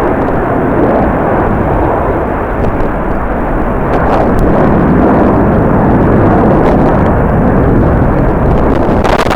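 Steady rumbling roar of a jet airliner's engines mixed with strong wind buffeting the microphone, growing slightly louder a few seconds in.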